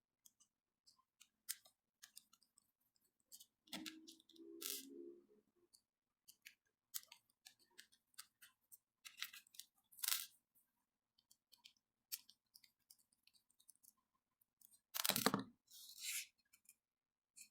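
Scattered light clicks, taps and scrapes of small spinning-reel parts and tools being handled during disassembly, with a short louder rattle about four seconds in and a louder knock near fifteen seconds.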